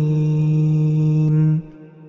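A male Quran reciter chanting, holding the drawn-out last syllable of a verse on one steady pitch, then stopping about one and a half seconds in and leaving a faint fading tail.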